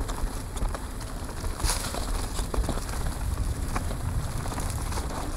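Mountain bike descending a dirt singletrack: tyres crunching over loose dirt, with the bike's chain and frame rattling as a run of sharp clicks and crackles. Wind rumbles steadily on the microphone, and there is a brief hiss about a second and a half in.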